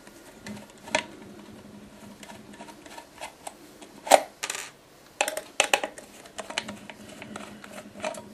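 Scattered small metallic clicks, taps and scrapes as the screws in the base of a tin-can enclosure are taken out and the can is handled, with one sharper knock about four seconds in and a quick run of clicks shortly after.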